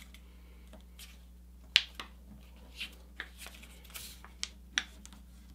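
A sheet of A4 paper being folded by hand: soft rustling and a scatter of short, sharp paper crackles as the nose is pulled down and the fold is pressed and creased flat.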